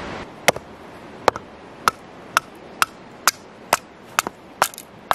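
Wood being chopped into kindling on a stump: a steady run of sharp chopping strikes, about two a second.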